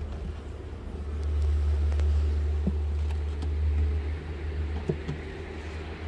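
A low rumble that swells about a second in and eases after about four seconds, with a few light knocks from the wooden hive parts being handled.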